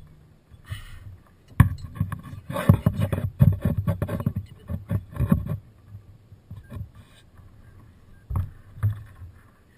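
Irregular knocking and clattering on a kayak: a sharp knock about a second and a half in, a few seconds of rapid knocks, then quieter with a couple of single knocks near the end.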